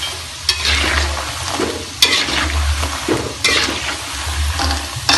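Dough strips deep-frying in hot oil in a metal wok, sizzling steadily, while a metal spatula stirs and turns them, knocking and scraping against the wok a few times. The crackers are being turned once half golden so they brown evenly without burning.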